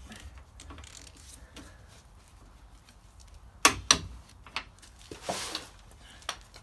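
Two sharp clanks close together a little past halfway, then a short scraping rustle and a few light clicks: hand tools being handled while working on a truck's wheel hub.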